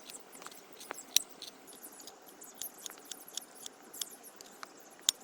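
Food crackling and popping in a hot pan: irregular sharp pops over a faint steady hiss.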